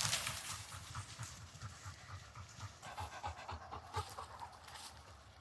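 Labrador retriever panting in quick, rhythmic breaths, fading near the end.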